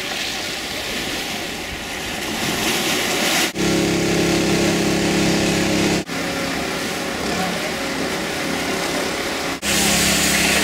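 Outdoor rushing noise of wind and sea, broken by several abrupt cuts. For a stretch in the middle and again near the end, a steady motor hum sits over it.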